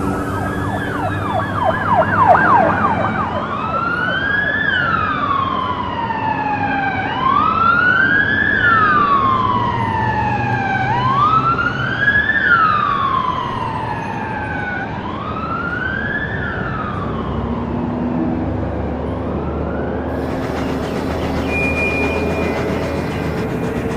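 Emergency vehicle siren: a fast yelp, then a slow wail that rises and falls four times, each rise quicker than the fall, dying away after about seventeen seconds. A steady low rumble runs underneath, and a hiss comes in near the end.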